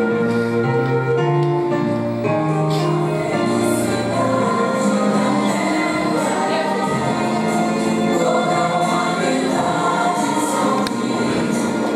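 Choral music: a choir singing over instrumental accompaniment, with held notes sustained early on.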